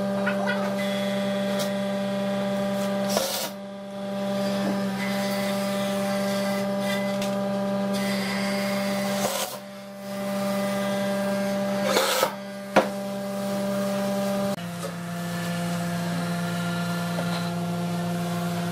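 Makita cordless driver running in long sustained runs as it drives screws into the wooden cabinet panels, with brief pauses between screws and a change in pitch about two-thirds of the way through.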